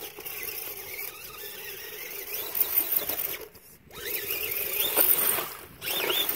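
Redcat Everest Gen7 Pro RC crawler's electric motor and geared drivetrain whining under throttle, the pitch rising and falling as the throttle is worked, with a brief cut-out about halfway through while it is eased over roots and mud.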